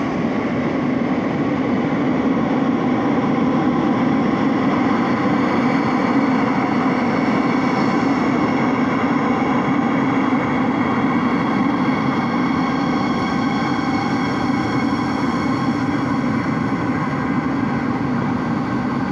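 Madrid Metro 8000-series train running into the station and along the platform: a steady rumble with faint high tones over it, swelling a little in the middle as the cars pass close.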